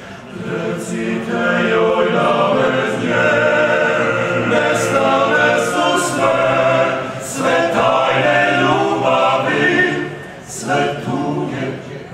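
Male vocal group singing a cappella in several-part harmony, with crisp sibilant consonants in the words and short dips between phrases.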